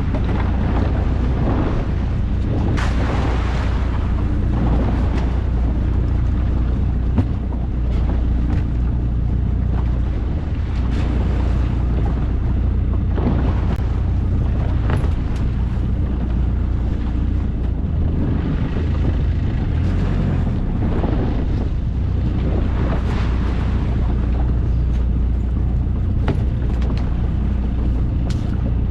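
Fishing boat's engine running steadily, with wind buffeting the microphone and sea noise over it.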